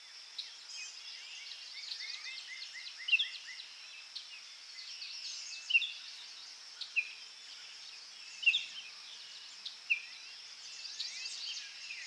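Small birds singing and calling: a quick run of repeated notes about two seconds in, then sharp chirps every second or two, over a faint steady high hiss.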